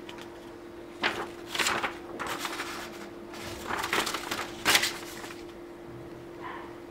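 Paper instruction booklet being handled, its pages turned and folded, rustling and crackling in several short bursts through the first five seconds, over a steady faint hum.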